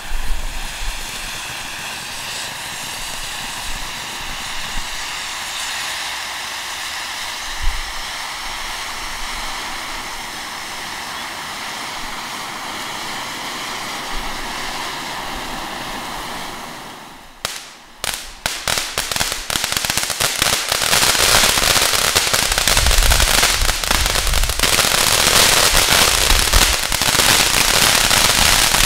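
Black Cat Medusa fireworks fountain spraying sparks with a steady rushing hiss. A little past halfway the sound dips briefly, then the fountain breaks into dense, louder crackling that runs on to the end.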